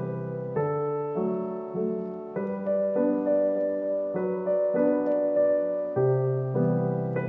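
Background piano music: a slow, gentle melody over chords, with new notes struck about every half second.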